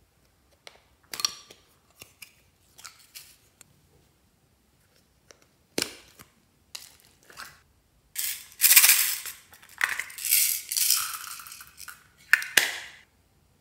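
Hard clear plastic slime containers being handled and opened: a few scattered clicks and taps, then from about eight seconds in several seconds of loud crinkling and crackling plastic as lids and film are peeled off.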